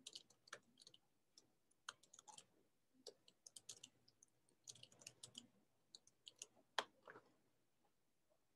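Faint, scattered clicking from a computer being worked with mouse and keys, some clicks coming in quick little clusters, the loudest about seven seconds in.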